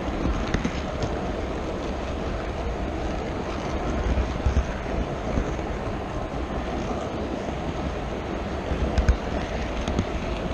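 Steady rumble and rattle of an HO scale model train rolling along its track, heard from a camera riding on the train, with uneven low thumps and a couple of sharp clicks, one about half a second in and one near the end.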